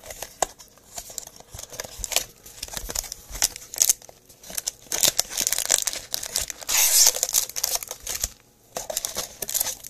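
Cardboard Bowman's Best trading-card mini box being torn open by hand, its wrapper crinkling. Irregular rips and crinkles, with a longer tear about five seconds in.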